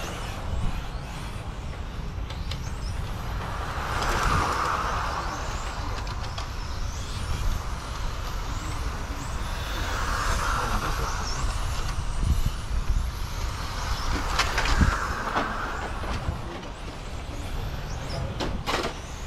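Radio-controlled cars running laps on an asphalt track, their motor and tyre noise rising and falling in passes roughly every five or six seconds. Wind rumbles on the microphone underneath, with a few sharp clicks near the end.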